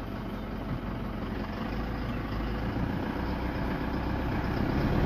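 Engine of the safari vehicle carrying the microphone, running with a steady rumble that grows slightly louder.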